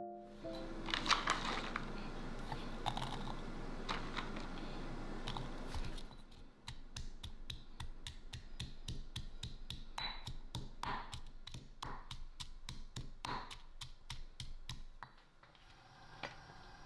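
Knife chopping garlic on a cutting board in quick, even strokes, several a second, after a few seconds of scraping and handling noise. The chopping stops near the end.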